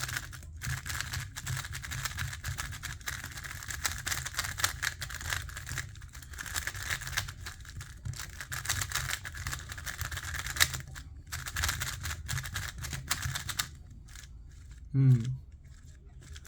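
A new, not yet broken-in Celeritas Tornado V3 M magnetic 3x3 speedcube being turned continuously: rapid, irregular plastic clacking of the layers. A short vocal sound comes near the end.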